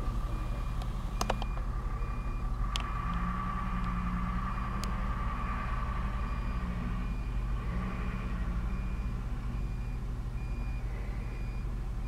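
Truck backup alarm beeping at an even pace over a truck engine running, with a higher whine for a few seconds in the middle and a few sharp clicks.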